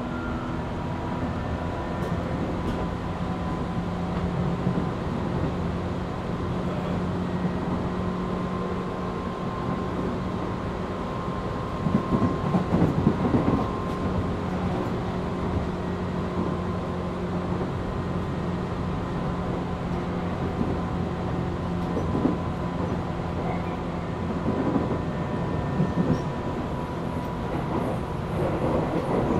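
Tobu 8000 series electric train running, heard from inside motor car MoHa 8270: a steady hum of traction motors and wheels with a steady whine. A louder rattle of wheels over the track comes about twelve seconds in and lasts a couple of seconds, with a few shorter ones near the end.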